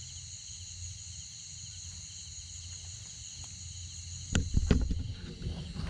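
Steady chirring of crickets and other insects, over a low rumble. About four seconds in come a few loud thumps and handling knocks.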